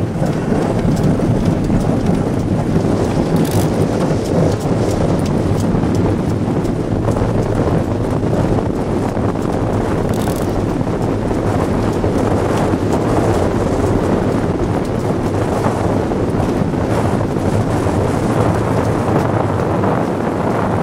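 Wind buffeting the microphone, over the steady noise of an iceboat's runners sliding over rough ice at speed.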